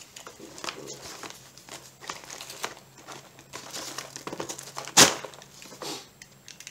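Tortilla chip bag crinkling as a box knife slits it open, with many small crackles and one loud sharp crackle about five seconds in.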